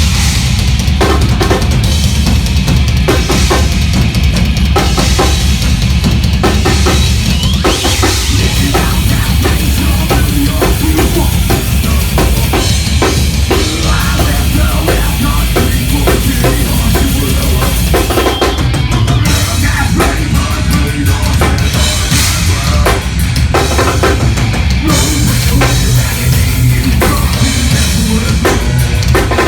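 Live heavy metal band playing loud: fast, dense drum kit with pounding bass drum under heavily distorted guitars and bass.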